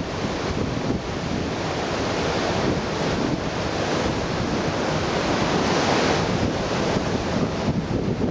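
Sea surf washing onto a beach, with wind buffeting the microphone: a steady rushing noise that swells a little around the middle.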